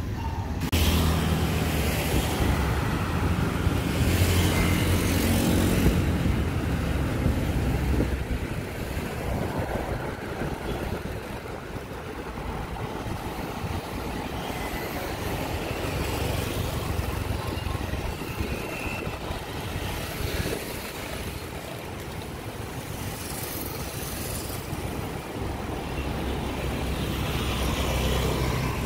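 City road traffic heard from a vehicle moving through it: engines and tyre noise, with a louder engine hum for the first several seconds that swells again near the end.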